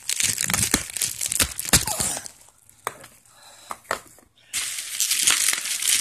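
Bubble-wrap and plastic packaging crinkling, crackling and tearing as it is handled and pulled open. It comes in two dense spells, with a quieter gap of scattered clicks in the middle.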